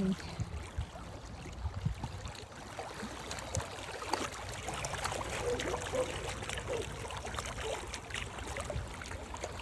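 Lake water lapping and splashing lightly, a steady wash broken by many small irregular splashes.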